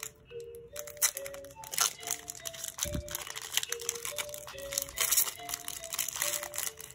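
Foil wrapper of a Yu-Gi-Oh! booster pack crinkling in the hands as it is torn open and the cards are pulled out, over soft background music with a simple stepping melody.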